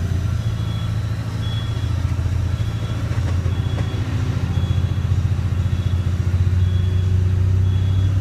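Diesel engine of a tractor-trailer truck running at low revs while reversing, heard from inside the cab, with the reverse alarm beeping about once a second.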